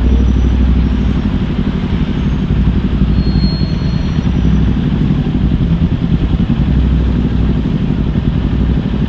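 Kawasaki Ninja 400's parallel-twin engine running at steady low revs, with no clear revving up or down.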